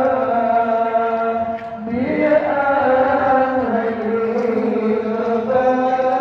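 Shalawat, Islamic devotional praise of the Prophet, chanted on long held notes that step from pitch to pitch, with a rising glide about two seconds in.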